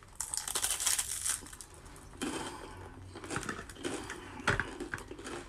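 Crunchy wheat crisp topped with avocado bitten into: a loud crunch in the first second or so, then quieter crunching as it is chewed.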